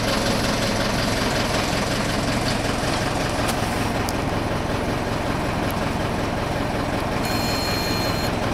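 Crane truck's engine running steadily at idle, a continuous low drone. A thin high tone sounds briefly near the end.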